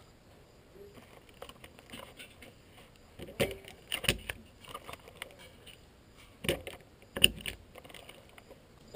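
Scattered metallic clicks and knocks of handling, with a few louder sharp knocks, the loudest about seven seconds in.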